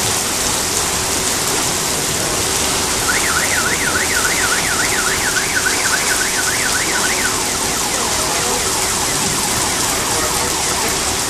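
Heavy downpour with storm water gushing up through a pavement drain grate: a steady rushing hiss. About three seconds in, a car alarm warbles rapidly, about three rises a second, for some four seconds, then gives way to fainter, slower sweeps.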